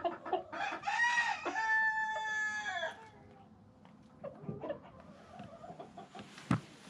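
A rooster crows once, starting about half a second in and lasting about two seconds: a rising and falling first part, then a long held note that drops away at the end. Chickens cluck in short scattered calls around it, and there is a sharp knock near the end.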